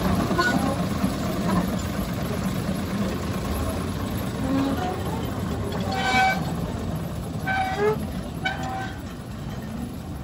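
Small diesel locomotive engine running steadily as it hauls open passenger cars past on a narrow-gauge track, fading as it moves away. In the second half, three short high-pitched tones sound.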